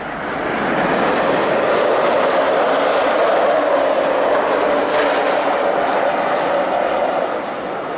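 Electric ice-racing car sliding sideways through a corner on studded tyres: a steady rushing of motor and tyre noise that builds over the first second, holds, and eases slightly near the end.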